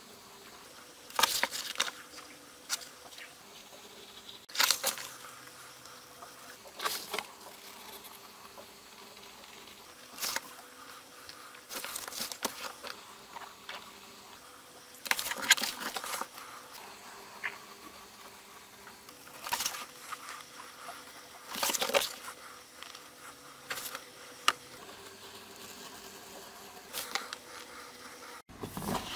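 Craft knife slicing through a sheet of leather along a cut line, in short scratchy strokes every second or two.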